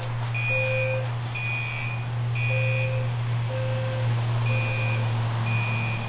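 Fire alarm horns sounding the temporal-three evacuation pattern, heard from outside the garage: the low-pitched beeps of a System Sensor P2WL-LF low-frequency sounder and a separate higher-pitched horn. Each gives three half-second beeps, then a gap, the two out of step, over a steady low hum.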